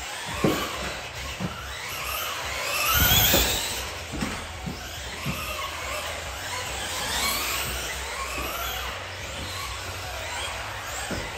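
Schumacher CAT L1R RC buggy's electric motor and drivetrain whining, the pitch rising again and again as it accelerates out of corners, loudest about three seconds in as it passes closest. Occasional short low thuds run through it.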